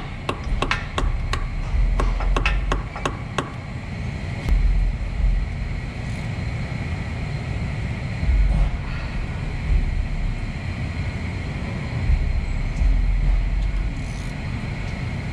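A quick series of about a dozen light metal taps in the first three seconds: a hammer tapping an easy-out screw extractor into a snapped exhaust manifold bolt. After that, a steady low rumble with a few dull thumps.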